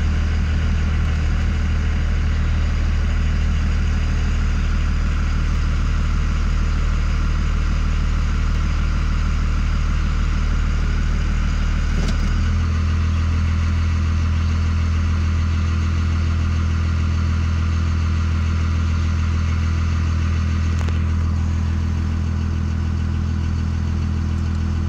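Cummins 5.9 inline-six turbo diesel idling steadily at about 800 rpm, its VP44 injection pump run by a homemade microcontroller in place of the factory ECM. The idle rises slightly about halfway through.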